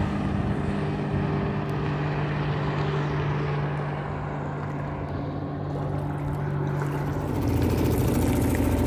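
Suzuki DF2.5 four-stroke outboard motor running at a steady pitch, pushing a small aluminium boat. About seven seconds in the engine sound turns rougher and louder, heard close up.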